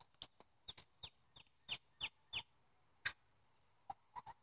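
Domestic hens clucking faintly: a run of about six short, high calls falling in pitch, then a few lower clucks near the end.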